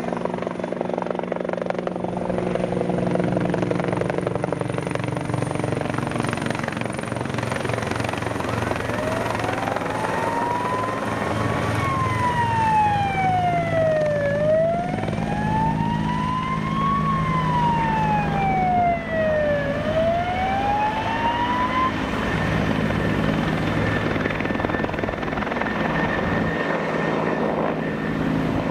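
Bell 412 twin-turbine helicopter running steadily as it flies overhead carrying its water bucket. About a third of the way in a siren starts up, wailing up and down in slow sweeps, rising and falling about twice before it stops.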